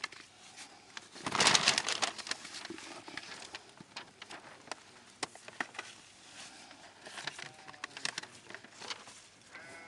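Fresh figs being handled in a paper-lined crate: rustling paper and soft knocks of fruit, loudest about a second in. Sheep or goats bleat faintly twice in the second half.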